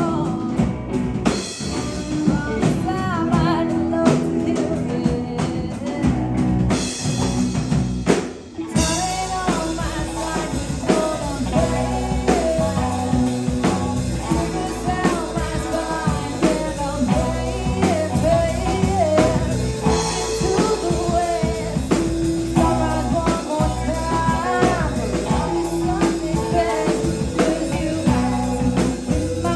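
Live rock band playing, with electric guitars, bass and a drum kit under a sung lead vocal. The band cuts out for a moment about eight seconds in, then comes back in.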